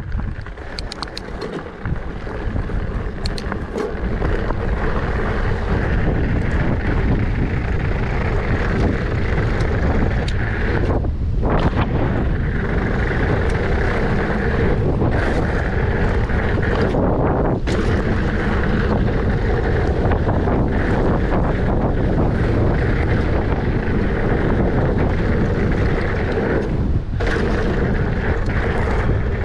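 Wind rushing over the camera microphone and knobby mountain-bike tyres rolling on a dirt and gravel trail during a fast descent. It grows louder over the first few seconds as the bike picks up speed, then holds as a steady rush, with a few light clicks in the first couple of seconds.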